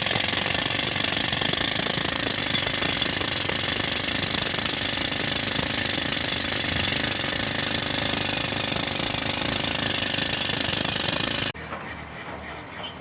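Pneumatic rock drill running steadily on air from a tractor-driven compressor, a loud, dense hammering noise that stops abruptly about eleven seconds in, leaving a quieter engine running underneath.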